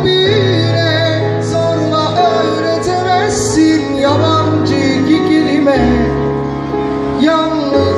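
Live slow Turkish pop song on an electronic keyboard: steady bass notes and chords under a melody line that slides and bends in pitch.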